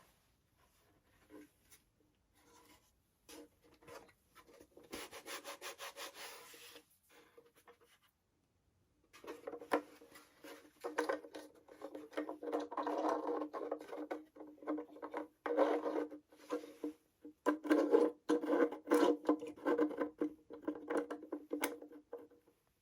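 Hands working on the parts of an airsoft gun during assembly: rubbing and scraping strokes on a hard part, with scattered clicks, in spells that grow denser and louder from about a third of the way in.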